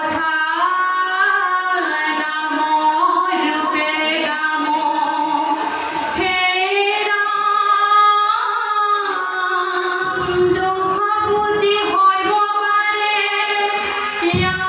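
A group of women singing dihanam, Assamese devotional song, together in long held notes.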